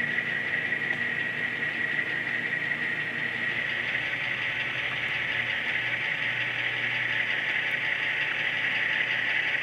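HO scale model diesel locomotive running slowly on rough jointed track: a steady high whirring hiss, with a low hum coming in about halfway through as the sound grows slightly louder.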